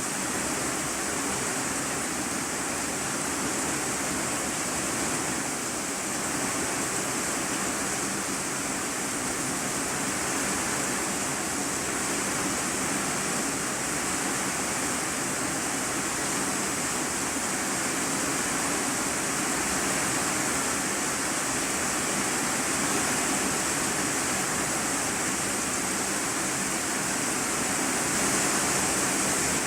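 Heavy rain falling on a corrugated iron-sheet roof, heard from the room beneath: a steady, dense hiss that grows slightly louder near the end.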